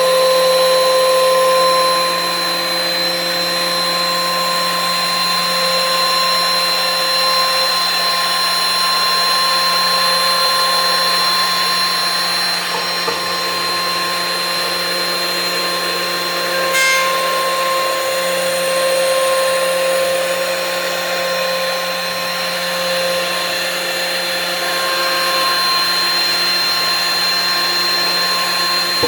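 DeWalt DW734 benchtop thickness planer running with a steady high whine while planing an old softwood stair tread. There is one brief sharp click around the middle.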